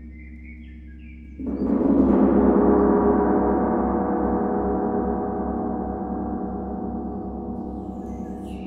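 A large gong is struck about a second and a half in. Its sound swells quickly into a dense wash of many tones and then slowly dies away, over low steady tones left ringing from earlier playing.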